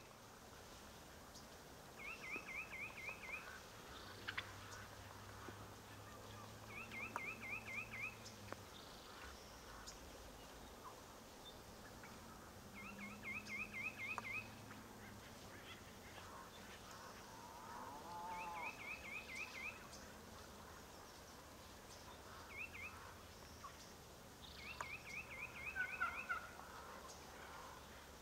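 Wild turkey toms gobbling: about six gobbles a few seconds apart, each a quick rattling series of notes. These are breeding-season gobbles from strutting males.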